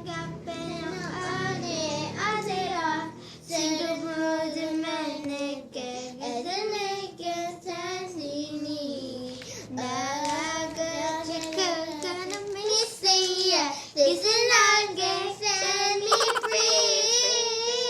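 A young girl singing, with long held notes that waver in pitch and short breaks between phrases.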